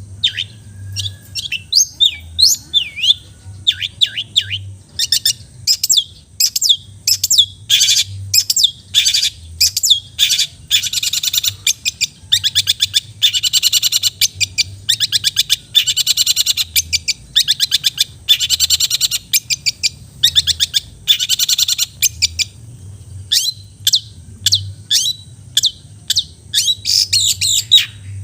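Long-tailed shrike (cendet) singing a fast, varied song of sharp chirps, quick up-and-down notes and harsh chattering trills, densest through the middle.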